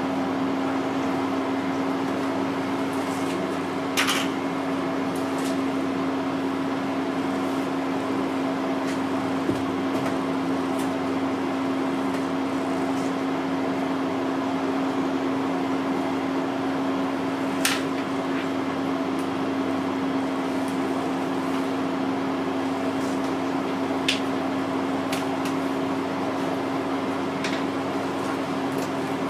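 A steady mechanical hum with one strong constant low tone, and a few brief clicks scattered through it.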